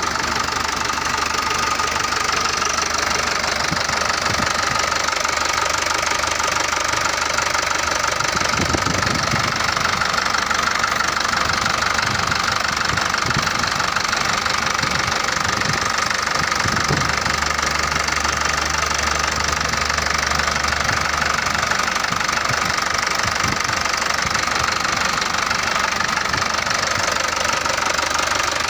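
Mitsubishi Canter light truck's diesel engine idling steadily.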